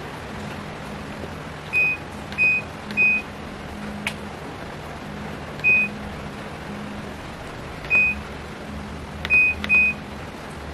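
Whirlpool front-load washer's control-panel buttons beeping as the temperature and spin-speed settings are stepped through: seven short, identical high beeps, two of them close together near the end, over a steady low hum.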